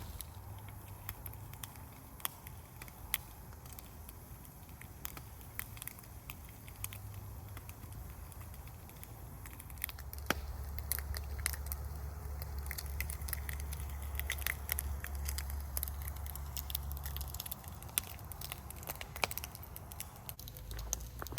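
Campfire crackling, with scattered sharp pops and snaps over a low steady rumble that grows louder from about ten seconds in until about seventeen.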